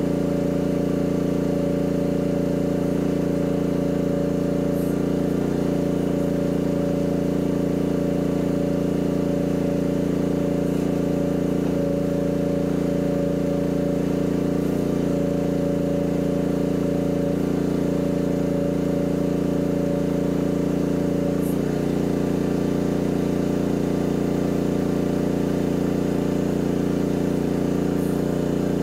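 Mini excavator's engine running steadily, with a slight change in its tone about two-thirds of the way through.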